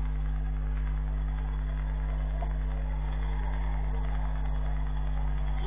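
Steady low electrical mains hum with constant background hiss from a security camera's audio, with no distinct events.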